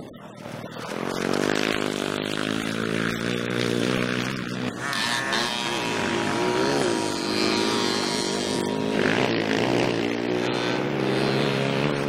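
Small motocross dirt bike engine running hard along the track, its pitch rising and falling as the throttle opens and closes.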